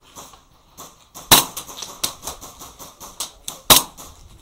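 Airsoft gunfire: two sharp loud shots about two and a half seconds apart, with lighter clicks and pops between them.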